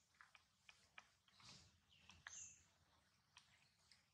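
Near silence: faint outdoor ambience with scattered small clicks and a few brief high chirps, the clearest about two seconds in.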